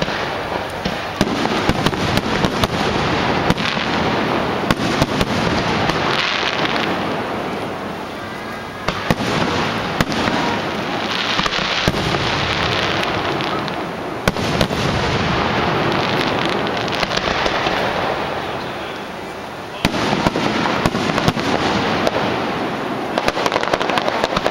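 Aerial fireworks display: shells bursting overhead in a near-continuous barrage of bangs and dense crackling. The barrage eases off briefly about eight seconds in and again near nineteen seconds, then picks up again.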